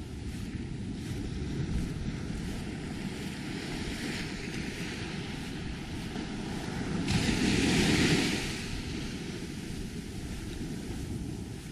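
Small ocean waves lapping and washing up the beach, with wind rumbling on the microphone. About seven seconds in, one wave rushes in louder for a second or two, then fades.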